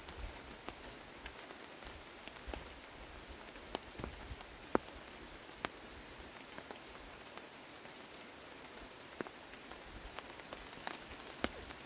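Light rain falling: a steady soft hiss with scattered single drops ticking now and then.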